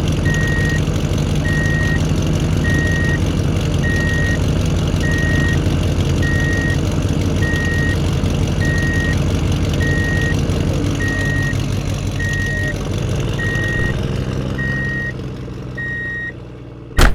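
Truck engine running steadily with a reversing alarm beeping at a regular pace. The engine fades away in the last few seconds, and a single sharp click comes at the very end.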